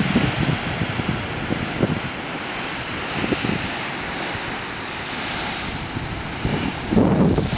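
Heavy surf breaking and washing over shore rocks, a steady rushing roar of foam, with wind buffeting the microphone in irregular gusts, the strongest about seven seconds in.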